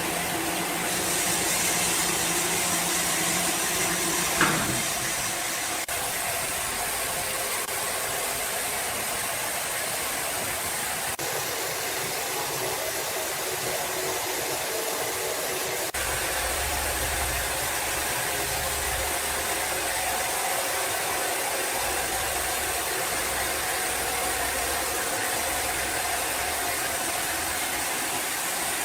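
Steady hum and hiss of running machinery, with a single sharp knock about four and a half seconds in and a deep low rumble that comes and goes in the second half.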